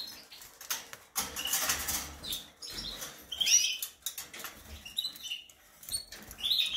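Rustling and light rattling as a nest cup is handled and lifted out of a wire bird cage, with a few short high chirps from the caged birds.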